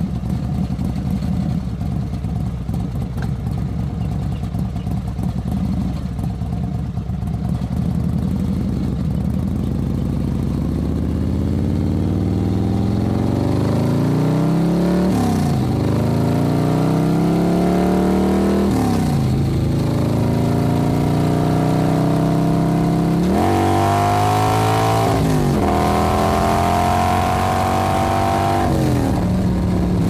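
Motorcycle engine idling steadily for about ten seconds, then pulling away: the engine note climbs with the revs and falls back sharply about four times as it shifts up through the gears.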